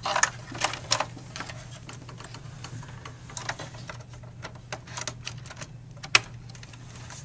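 Irregular plastic and metal clicks and taps from the parts of an open Dell desktop being handled: cables pressed into the case's plastic anchor clips and hands working around the metal drive cage. The sharpest click comes near the end.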